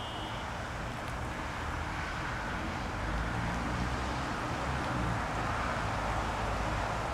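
Outdoor ambience: wind rumbling on the microphone over a steady hiss, the rumble growing stronger about three seconds in.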